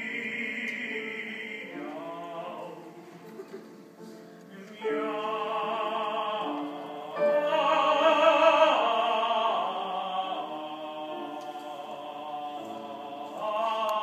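Male operatic voice singing an opera buffa number with piano accompaniment, in phrases with a quieter stretch a few seconds in and loudest about eight seconds in.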